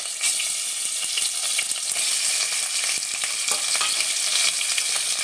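Bone-in chicken pieces sizzling in hot mustard oil in a pot, a steady frying hiss with a scatter of small crackles.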